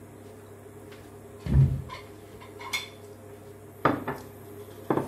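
Tableware clattering at a meal: a dull thump about a second and a half in, then three short, sharp clinks of chopsticks and dishes.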